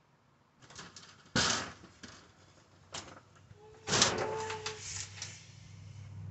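A metal curtain rod being handled: a string of sharp knocks and rattles, loudest about a second and a half in and again around four seconds, with a brief metallic ring around the second knock. A low hum builds near the end.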